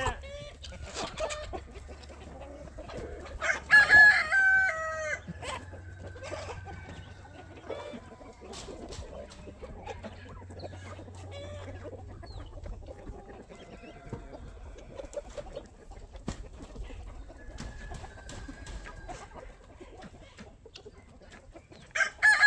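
Chickens clucking and calling around a chicken tractor, with a rooster crowing loudly once about three and a half seconds in. Scattered light knocks and clicks run under the calls.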